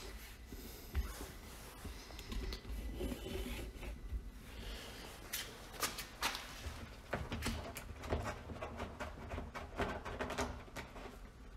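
Hands working a water softener's plastic brine tank and its brine well tube: scattered rubbing and scraping with light knocks and clicks of plastic on plastic.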